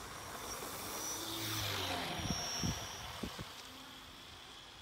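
Radio-controlled model Spitfire's motor buzzing as the plane flies, swelling louder and then fading as it passes. There are a few short low thumps near the middle.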